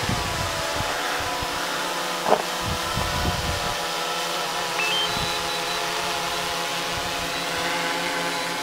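DJI Phantom 3 quadcopter flying, its propellers giving a steady, multi-pitched buzzing hum, with wind buffeting the microphone and a brief knock about two seconds in.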